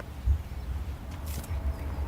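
Outdoor ambience: a steady, gusty low rumble with a short knock about a third of a second in and faint bird chirps in the background.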